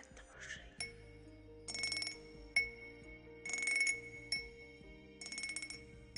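ASMR wind-chime cup being played in rhythm: single clear glassy strikes that ring out on a high tone alternate with short, quick jingling runs, about one event a second, over soft sustained low notes.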